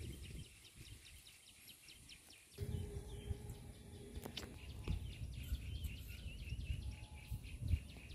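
Outdoor ambience of birds chirping, a quick run of short high chirps with a brief warbling phrase near the middle. A low rumble joins about two and a half seconds in.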